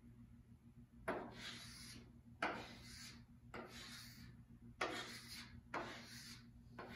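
Chalk on a blackboard as numbers are circled: about five quick strokes, each starting with a tap and trailing off in a short scratch.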